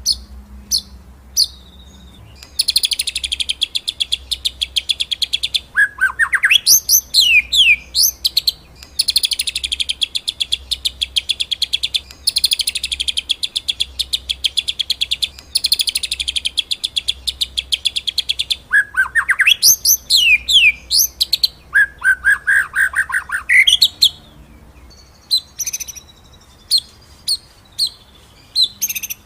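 White-rumped shama (murai batu) singing: several long, fast rattling trills, broken by quick up-and-down whistled phrases, then a lower rapid trill. Near the end the song turns to single sharp, clipped notes a second or so apart.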